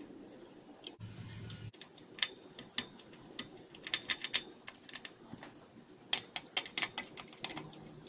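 Irregular light clicks and ticks of a screwdriver working the screws that clamp power transistors to an aluminium heatsink, as the screws are tightened, with the clicks coming thick and fast in the second half.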